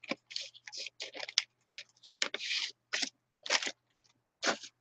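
A clear plastic bag and papers crinkling and rustling as they are handled, in a string of short bursts as index cards are taken out of the bag.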